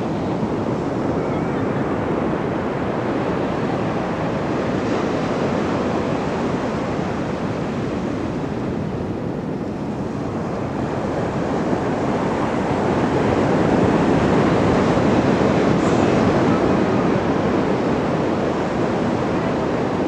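Ocean surf breaking and washing onto the shore in a continuous roar of waves, swelling louder a little past halfway as a bigger wave comes in.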